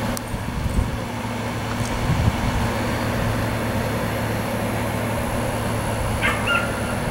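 Steady outdoor background noise with a constant low hum, like distant machinery or traffic, and a brief high chirp about six seconds in.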